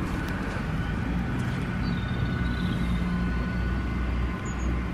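Steady low rumble of distant vehicle traffic, with a couple of short high chirps about two and four and a half seconds in.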